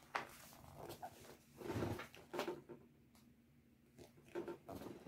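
Faint rustles and soft taps of a paper picture book's pages being handled and pressed flat: several short sounds, the loudest about two seconds in.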